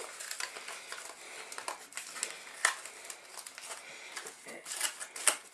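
Thin aluminium foil takeaway container crinkling and clicking as pizza dough is pressed into it by hand, with faint irregular crackles and a few sharper ticks.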